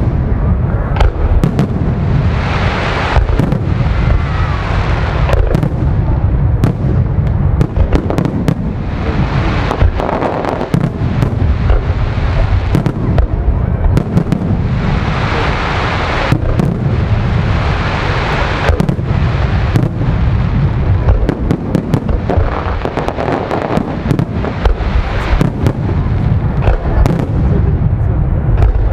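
Aerial fireworks display: firework shells bursting one after another, many sharp bangs over a continuous low rumble.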